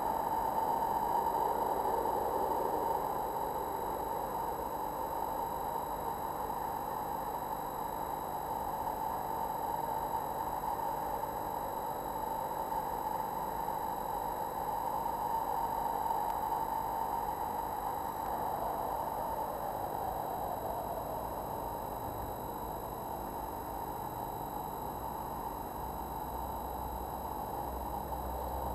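Steady hiss with several faint, constant high-pitched whines running under it; no distinct rustles or animal calls stand out.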